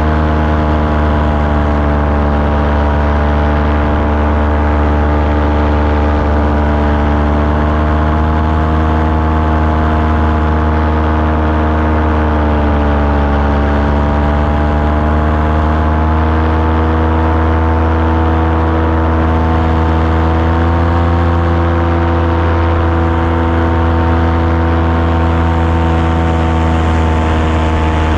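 Small aircraft engine running steadily in flight, its pitch sagging briefly about halfway through and then recovering.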